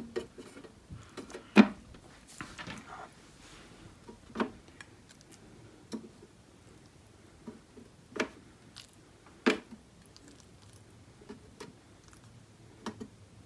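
Soft clicks and taps of wet slices of marinated raw beef being laid onto a plastic food dehydrator tray, about six separate taps a second or two apart, the loudest about one and a half seconds in.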